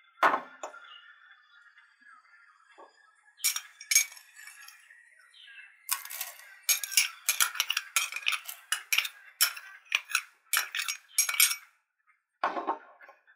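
A metal spoon tapping and scraping against a china cup, knocking chopped nuts out into an enamel bowl: a few single clinks, then a quick run of clinks about two a second.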